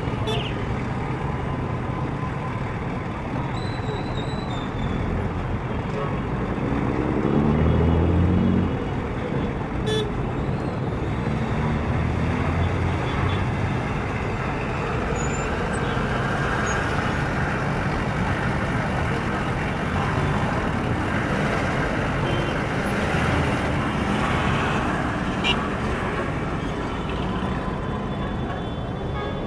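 City street traffic: a steady wash of passing cars and buses, with one vehicle's engine loud and close about eight seconds in, its pitch rising as it pulls away.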